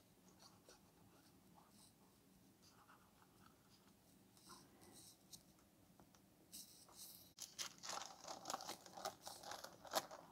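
Faint paper rustling and scratching from hands pressing a glued paper cut-out onto a journal page, near silent at first and busier from about six and a half seconds in.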